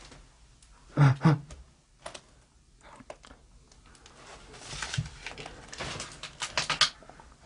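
Close-up rustling and quick clicking of papers and small objects being handled, thickest in the last few seconds. About a second in come two loud, short sounds in quick succession.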